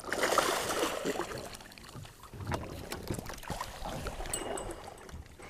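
Sea water splashing as a ling thrashes at the surface and is scooped into a landing net, loudest in the first second and a half, followed by lighter splashes and small knocks.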